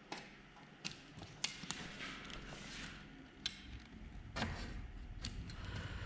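Faint handling sounds from working a vinyl graphic panel onto a race car body: about half a dozen light taps and clicks over a low background hiss.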